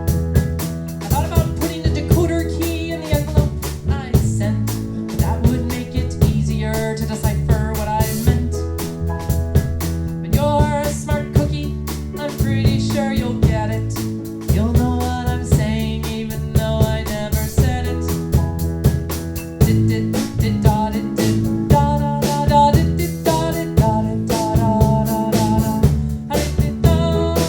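A band playing a song: a drum kit keeps a steady beat under a bass line and a melodic lead line.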